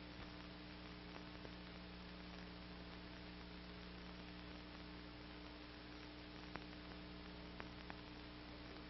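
Low, steady electrical hum with hiss from an old film soundtrack, broken by a few faint clicks late on.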